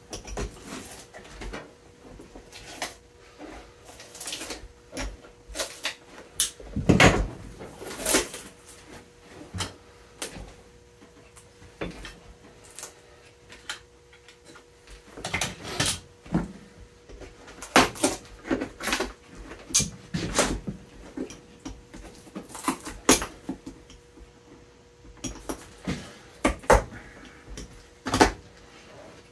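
Irregular clicks, knocks and pulling noises as the old leather midsole is pried and torn off a welted boot with pincers, with a few louder knocks of the boot and tools against the bench.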